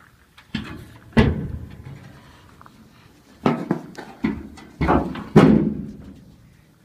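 Sheet-metal clunks and rattles as the hood latch of a 1971 Chevy C10 pickup is worked and the hood is pulled up and swung open. About half a dozen sharp knocks each ring briefly, the loudest a little past five seconds in.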